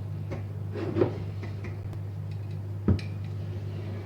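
A stuck honey jar lid being worked open by hand: scattered faint knocks and clicks, with two sharper clicks about one and three seconds in, over a steady low hum.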